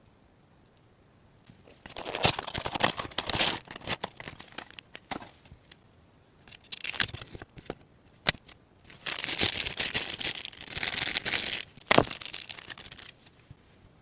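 Thin plastic or paper packaging crinkling and tearing in several bursts, with a few small sharp clicks, the loudest near the end.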